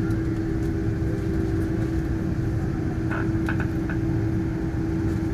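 Steady cabin noise inside an airliner on the ground, with its jet engines at idle and the cabin air system making a constant hum with a steady tone and a low rumble.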